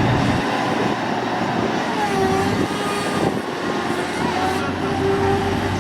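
Off-road 4x4 vehicle engine running under load.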